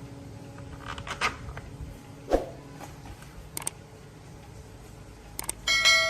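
Small metal parts and tools being handled: scattered clicks and knocks, one louder knock a little before halfway, and a brief bright metallic ring near the end.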